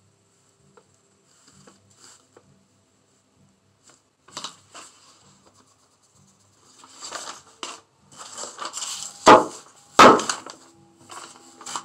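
Faint scratching of a tool in sand, then the rustle and slide of loose sand as it is sprinkled onto a sand painting and the board is tilted to shed the excess. Two loud knocks come near the end, as the board is handled and knocked on the table.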